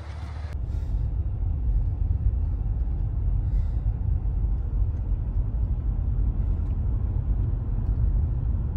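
Low, steady rumble of a vehicle driving, heard from inside the cab; it builds over the first second or so.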